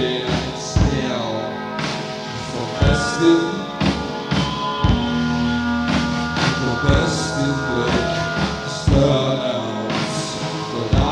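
Live rock band music: drum hits over long held instrument tones, with a singing voice.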